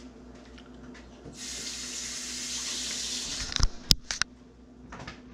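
Water running from a kitchen tap for about two seconds, cut off, followed by a few sharp knocks.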